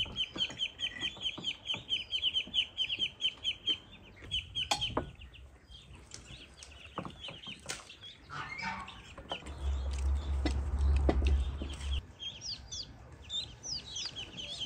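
Chickens clucking and peeping in quick runs of short high notes, with scattered light clinks of forks on plates. A low rumble rises about ten seconds in and stops two seconds later.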